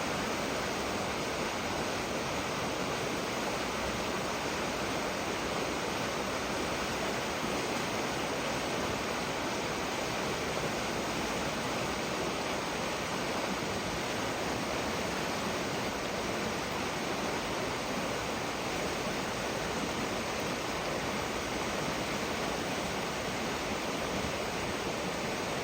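Steady, even rushing noise that does not change, with no bird calls or other distinct sounds in it.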